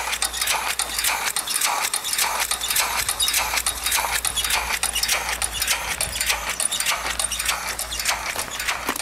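Homemade two-stroke steam engine running steadily on about 25 to 30 pounds of steam pressure, its exhaust and valve gear making a fast, even chuffing clatter. Steam hisses from the engine and its pipework.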